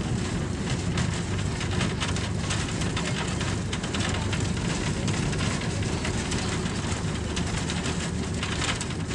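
Bus running along a road, heard from inside the cabin: a steady engine drone with road and rattle noise.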